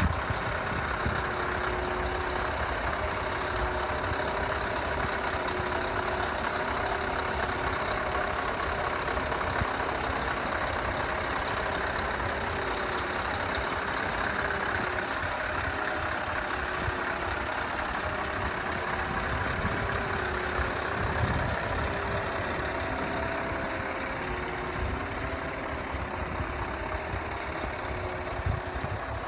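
Scania R500 timber truck's diesel engine idling steadily, a little fainter in the last few seconds.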